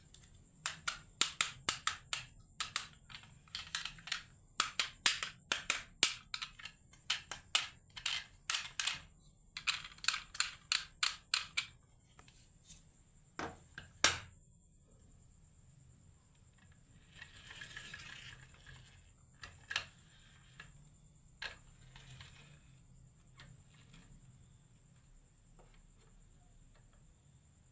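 Marbles clacking down a wooden marble run: a quick string of sharp clicks for about twelve seconds, one loud knock about halfway through, then a brief rolling rush and a few scattered clicks.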